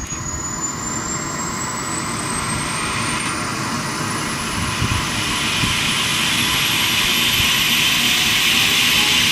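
Eurocopter EC135 helicopter's twin turbine engines starting up: a high whine climbing steadily in pitch as the main rotor spins up, the whole sound slowly growing louder.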